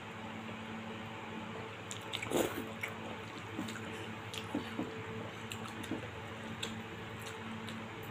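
A person eating chicken noodles (mie ayam) with two metal forks: wet chewing and slurping, with a louder slurp about two and a half seconds in, and scattered light clicks of the forks against a ceramic bowl, over a steady faint hum.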